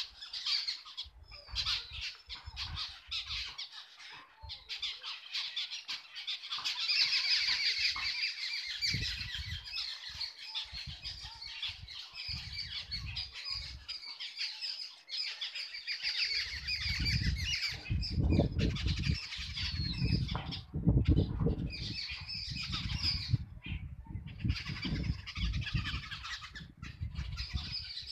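A flock of birds calling and chattering all at once, many short harsh calls overlapping without a break. From about halfway, low rumbling bursts come in under the calls.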